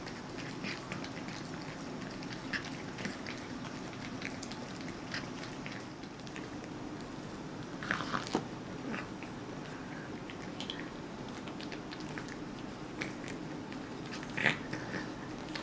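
Persian cats gnawing, licking and biting at a cooked turkey drumstick: a run of small clicking chews, with a louder cluster of bites about eight seconds in and again near the end, over a steady low hum.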